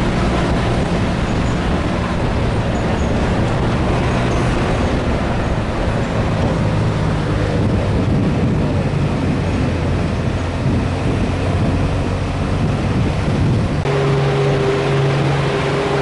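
Open-air truck's engine running as it climbs a steep, winding mountain road, with steady rumble from the road and wind. The engine note shifts midway, then changes abruptly about 14 seconds in to a steadier, clearer tone.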